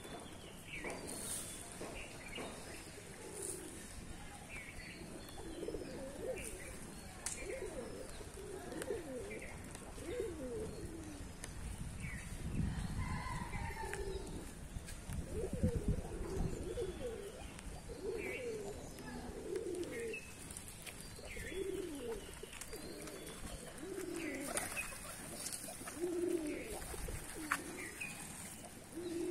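A flock of domestic pigeons cooing over and over, calls overlapping, with a few higher chirps. There is a brief low rumble about halfway through.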